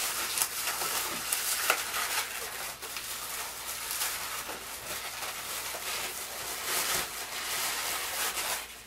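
Inflated latex twisting balloons (260s) rubbing and squeaking against each other and against the hands as they are twisted and tied together, an irregular run of short squeaks and rubbing.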